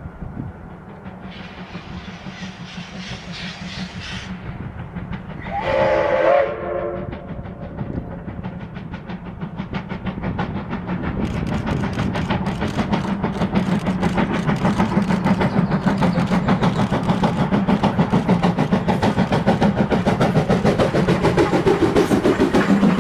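Steam locomotive of the Moka Railway approaching: a hiss, then one whistle blast about six seconds in, then rapid exhaust beats and running noise that grow steadily louder as it nears.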